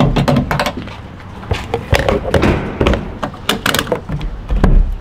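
Sharp clicks and knocks of a diesel pump nozzle and the truck's fuel-filler caps and door being handled during refuelling, with a heavy thud near the end.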